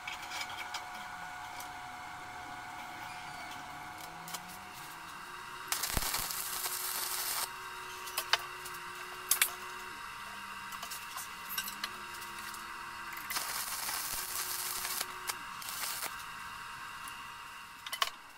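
Steel bar and drill bit handled at a metal bench vise: a few sharp metallic clicks, and two longer stretches of hissing, scraping noise lasting about one and a half seconds and two and a half seconds.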